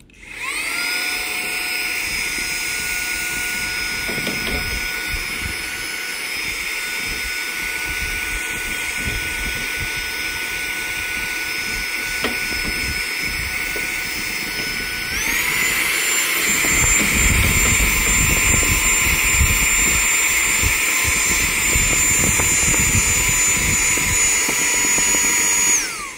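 Handheld vacuum cleaner switches on and runs with a steady high motor whine as it sucks dust from around the scanner's paper-feed roller and sensor area. About fifteen seconds in it steps up to a higher, louder speed. Near the end it switches off, the whine falling away.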